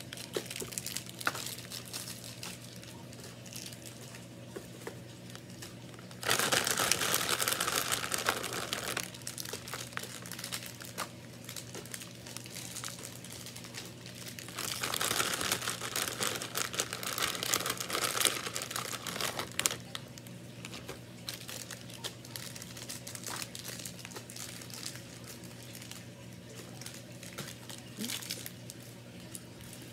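Plastic candy bags crinkling and rustling as they are handled and emptied, with two louder spells of crinkling, one about six seconds in and one about fifteen seconds in.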